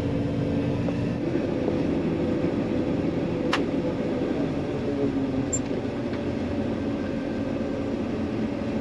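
Large diesel engine of harvest machinery running steadily, with one sharp click about three and a half seconds in.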